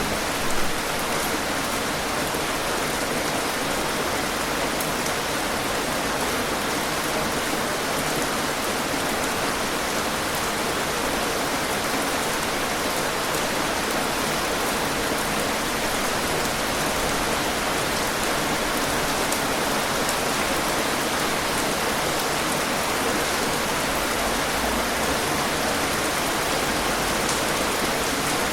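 Heavy rain falling steadily: an even hiss of many drops, with faint scattered individual drop ticks.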